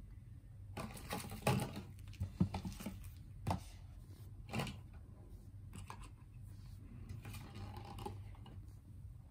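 Plastic hair-dye kit items being handled and set down on a blanket: a run of light clicks, taps and packaging rustles in the first half, then softer rustling of a clear plastic tray near the end, over a low steady hum.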